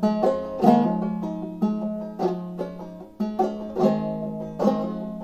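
1890s five-string banjo played clawhammer style in a tuning a little below double C: a slow phrase of struck notes and brushed chords, each left to ring.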